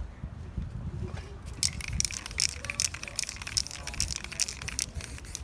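Spray-painting work on a stencil painting: a rapid run of short hissing strokes begins about one and a half seconds in, over a low rumble.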